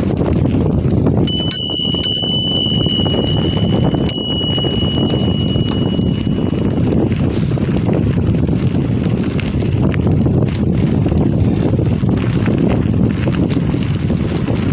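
Bicycle rolling along a dirt trail, with steady wind and tyre rumble. About a second in, a handlebar bell is rung a few times, its clear ring fading slowly over several seconds, and rung once more about four seconds in.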